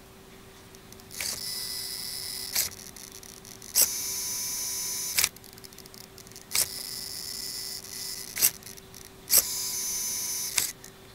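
Digital steering servo of an RC drift car, turned to lock and back four times: a sharp click as it moves, a high-pitched whine for about a second and a half while it holds, then another click as it returns. The owner is unsure whether this servo noise is normal.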